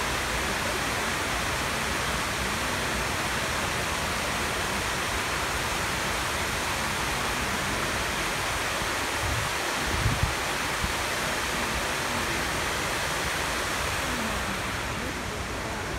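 Steady rushing of water pouring down the walls of the 9/11 Memorial reflecting pool's waterfall, with a few brief low bumps about ten seconds in.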